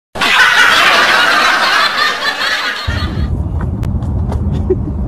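Laughter sound effect edited into the audio: about three seconds of loud snickering laughter that starts abruptly after a brief cut-out. Then a low steady rumble returns.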